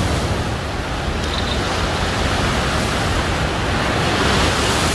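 Steady wash of sea waves on the shore, with wind.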